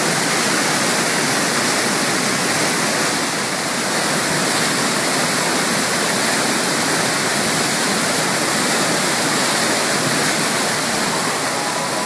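Waterfall in spring flood: a heavy, steady rush of high, muddy snowmelt water pouring down the falls.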